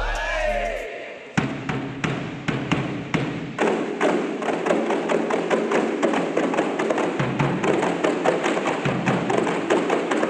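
A kompang troupe playing: many hand-struck kompang frame drums beating a fast, interlocking rhythm over the deep strokes of a large barrel drum. The drumming comes in a little over a second in and grows denser about three and a half seconds in.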